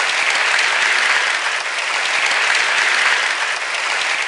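Audience applauding steadily, a dense patter of many hands clapping that starts to fade at the very end.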